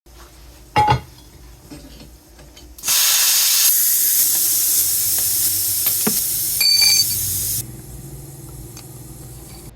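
Pressurised air escaping from a homemade piston compressor in a loud, steady hiss for about five seconds, with a brief whistle near the end, before it cuts off suddenly. A sharp knock about a second in.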